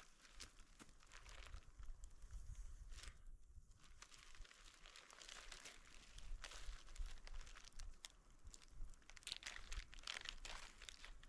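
Faint, irregular crinkling and crackling with many small scattered clicks, thicker in the second half.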